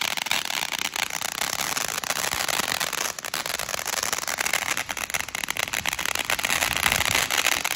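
Phantom Storm Runner ground fountain firework burning: a steady hiss from its spark spray with many sharp crackles over it, thickest in the second half.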